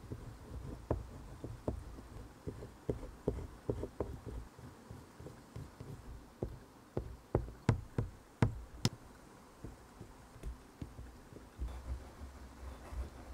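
Caran d'Ache oil pastel stick scraping and dabbing on drawing paper in short strokes, with a run of sharp taps a little past the middle.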